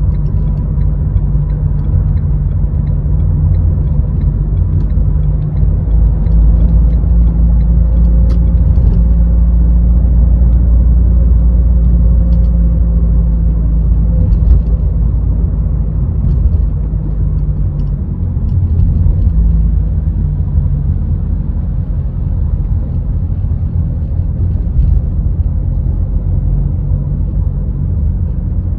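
Car driving in city traffic: a steady low rumble of engine and road noise, swelling a little in the middle and easing off again, with a faint steady whine and a few light ticks.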